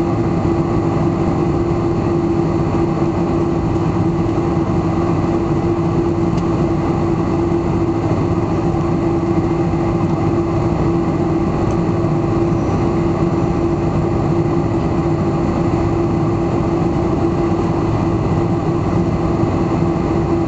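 Jet airliner's engines at taxi power heard inside the passenger cabin: a steady hum with one constant tone over a low rumble, unchanging throughout.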